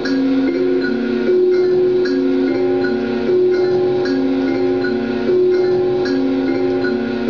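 Live electronic drone music: a loop of sustained, bell-like tones stepping between two or three low notes in a repeating cycle of about two seconds, with faint regular clicks above.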